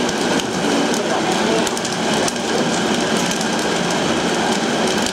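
Busy kitchen noise: a steady rush of sound with frequent clinks and clatters of utensils and cookware.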